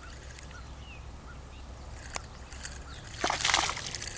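A small hooked bass splashing at the water's surface as it is reeled in, a short burst of splashing a little over three seconds in.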